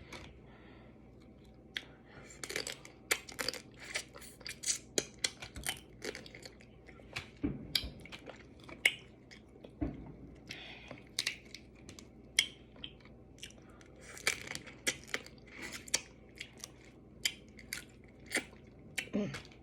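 A person chewing and crunching food close to the microphone: many short, irregular wet clicks and crackles.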